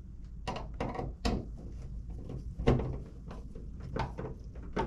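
Tools and mounting hardware being handled: a string of short knocks and clatters, about six, the loudest close to three seconds in.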